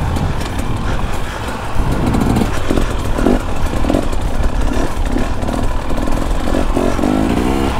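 Two-stroke dirt bike engine being ridden in short bursts of throttle, its pitch rising and falling about once a second.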